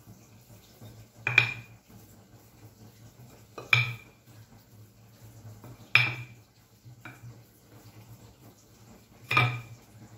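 A wooden rolling pin knocking on a granite worktop as flatbread dough is rolled out: four sharp clacks a couple of seconds apart, each with a short ring, and a fainter one between the third and fourth.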